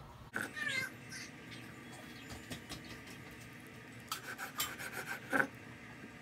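A chef's knife slicing through steamed stuffed squid on a wooden cutting board. A brief squeaky rubbing scrape comes just after the start, then a run of quick scrapes and knocks of the blade on the board about four seconds in, ending in a sharper knock.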